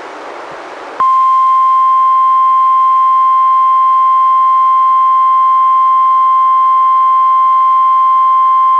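NOAA Weather Radio 1050 Hz warning alarm tone, sounded as a required weekly test, coming through a weather radio receiver. About a second of radio hiss, then one loud, steady, unbroken high tone.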